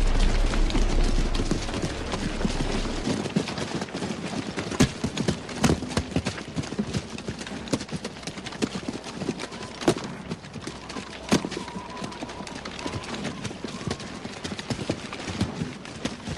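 Battle soundtrack: a dense, irregular clatter and crackle with several sharp single cracks like rifle shots. A low rumble fades out after about three seconds.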